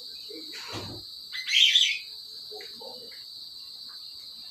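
A bird gives a short chirp about a second and a half in, over the steady high trill of crickets. A faint thump comes just before the chirp.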